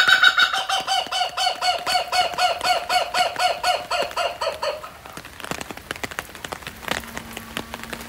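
Laughing kookaburra calling: a fast run of repeated laughing notes, about four a second, that fades out a little over halfway through, leaving only faint scattered ticks.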